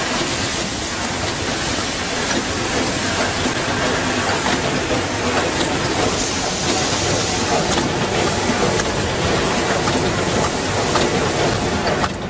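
Automatic CNC screen printing machine running: a steady mechanical hiss and rattle with many small clicks. The sound drops out briefly near the end.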